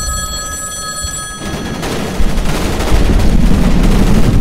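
iPhone ringing with a chord of steady electronic ring tones. From about a second and a half in, loud video-game gunfire drowns the ring out.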